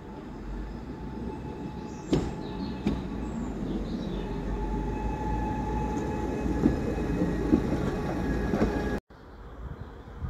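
Passing train: a low rumble that builds as it draws close, with a steady whine and two sharp clicks about two and three seconds in. The sound cuts off abruptly near the end.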